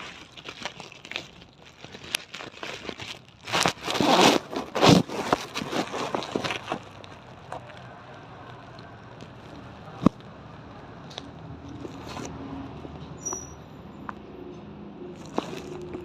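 A quick run of irregular clicks and crackles for about the first seven seconds, then only an occasional single click, one sharper than the rest about ten seconds in.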